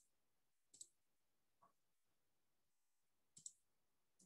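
Faint computer mouse clicks: four short clicks spread over a few seconds, each a quick double tick, against near silence.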